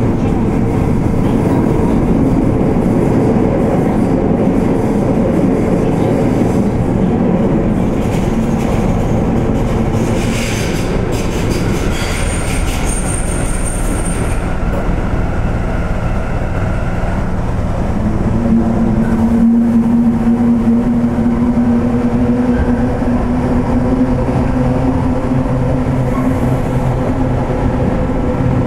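Sendai Subway Tozai Line linear-motor train running, heard from inside its rear cab: a steady rumble of wheels and running gear. A little before halfway there is a short patch of clicks with a brief high wheel squeal. In the second half a steady motor whine comes in and slowly rises in pitch.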